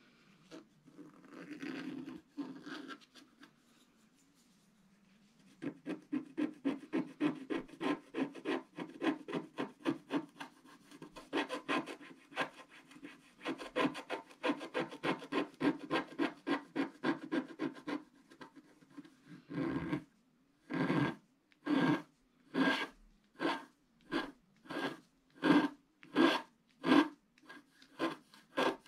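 Pointed wooden stylus scratching the black coating off scratch-art paper in short rasping strokes. A brief scrape, a pause, then a fast run of several strokes a second, giving way about two-thirds in to slower, separate strokes about one a second.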